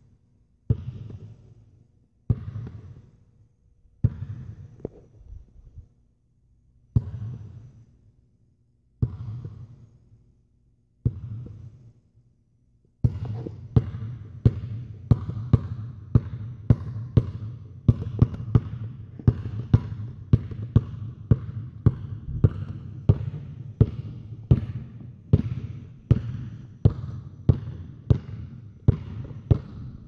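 Basketball being dribbled, each bounce a sharp thud that trails off briefly. At first the bounces come singly, about every two seconds. From a little under halfway they turn into a steady dribble of about two bounces a second.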